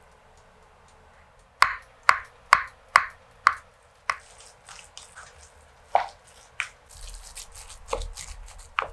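Utensils knocking against a glass mixing bowl: five sharp knocks about half a second apart, then a few more. Near the end comes wet squelching and scraping as mashed potato is stirred with a wooden spoon and a fork.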